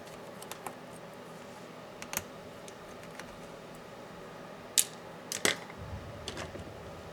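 Scattered small clicks and taps of laptop parts and tools being handled during disassembly, with two sharper clicks about five seconds in.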